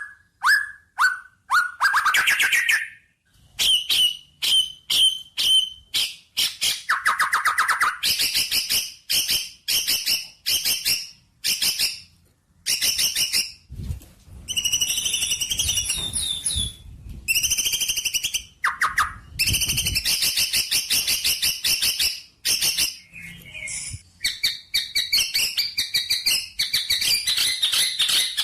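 A songbird singing loudly in fast runs of repeated chirps and whistled notes, broken by short pauses, with longer rapid trills near the middle and the end.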